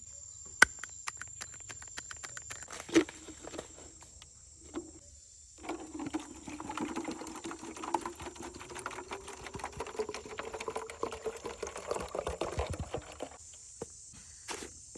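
Water poured into a container for several seconds, its pitch rising steadily as it fills, after some light knocks and handling clicks. Insects shrill steadily in the background.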